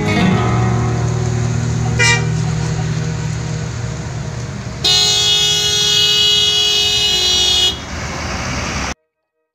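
Bus diesel engine running as a coach pulls past, with a brief toot about two seconds in. From about five seconds in, a bus air horn sounds one steady chord for nearly three seconds.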